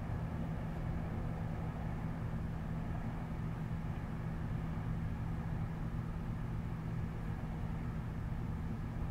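Steady low city hum with a few constant low tones underneath, unchanging, with no single event standing out.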